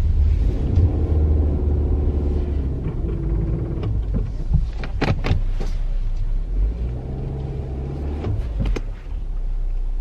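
Car engine running under load, heard from inside the cabin, as the car is reversed against the deep snow it is stuck in. A steady whine rides over the low engine hum for the first few seconds, and a few sharp clicks come about five seconds in.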